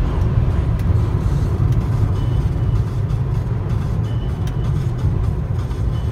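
Cabin noise of a Volvo S80 2.4 Turbo's five-cylinder turbo engine cruising at about 3,000 rpm at highway speed, under a heavy, steady low rumble of road and wind noise. The car is slowing and the sound eases slightly.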